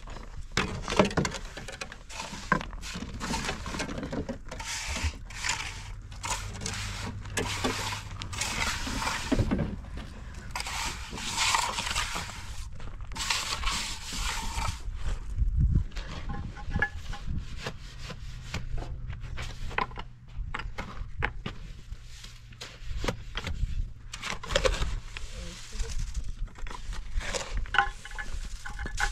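Repeated rough scraping of a shovel mixing wet cement mortar in a metal wheelbarrow, busiest in the first half; later, a steel trowel scraping mortar onto a stone base.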